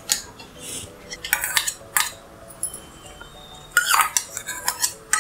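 Metal spoon clinking and scraping against a non-stick frying pan as ghee is spooned into it, in several short bursts of clicks and scrapes.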